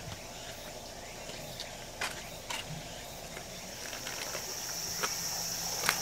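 Insects buzzing in a steady high-pitched drone that swells in about four seconds in, over a low background hum, with a few sharp clicks.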